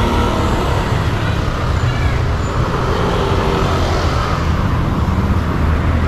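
Steady road traffic noise, a continuous low rumble.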